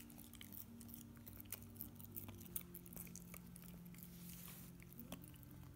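Golden retriever puppy gnawing a rolled rawhide (cow-skin) chew: faint, irregular clicks and crunches of teeth working the hide.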